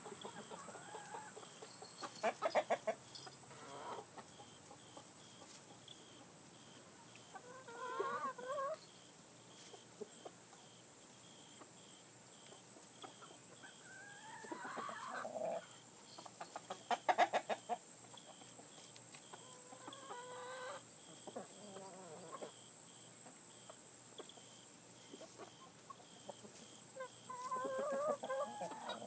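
Chickens clucking and calling in short, separate bouts. The two loudest are quick rapid-fire call series, a few seconds in and again about halfway through.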